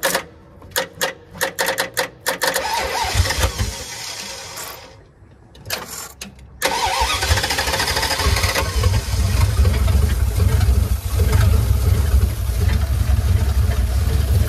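1989 Dodge half-ton pickup's 318 V8 being started: a run of clicks and a stretch of cranking, then the engine catches suddenly about six and a half seconds in and keeps running steadily. The hard start is put down to too little battery power to get the fuel injection going.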